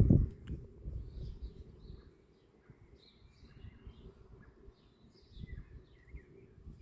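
Birds chirping faintly in the background, short high chirps scattered throughout. A low rumbling noise is loudest at the very start and fades away within about two seconds.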